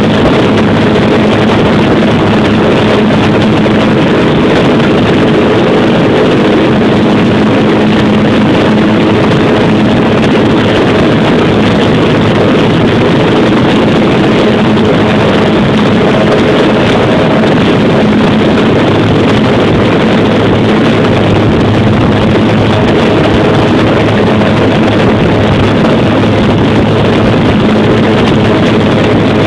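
Cessna 208B Caravan's turboprop engine and propeller running loud and steady, a constant drone with a low hum and a rush of wind noise.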